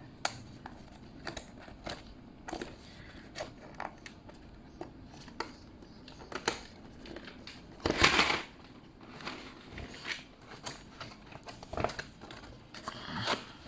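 A keyboard's box and packaging being opened and handled by hand: scattered rustles, scrapes and light taps, with a louder rustling burst about eight seconds in and another near the end.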